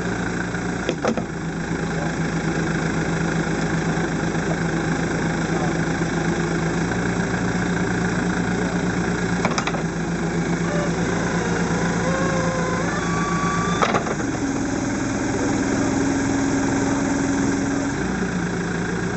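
Backhoe engine running steadily, with three sharp knocks. About two-thirds of the way through it speeds up to a higher pitch for a few seconds, then drops back to its earlier speed.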